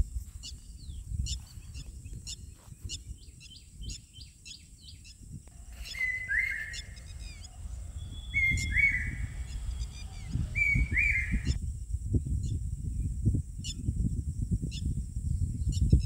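Birds chirping in woodland: many short high chirps, and in the middle one bird gives a louder two-part call three times, a couple of seconds apart. A steady high hiss and a low irregular rumble run underneath.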